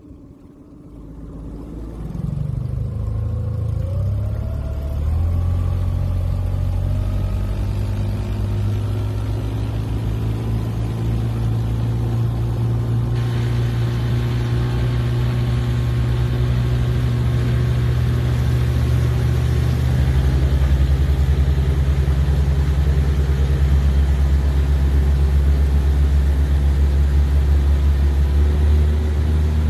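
Outboard motor of a small inflatable boat throttling up, rising in pitch over the first few seconds, then running steadily at speed, a little louder about two-thirds of the way through.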